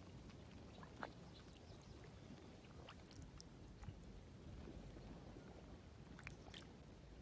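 Near silence: faint outdoor background with a few soft, scattered clicks, the most distinct about a second in.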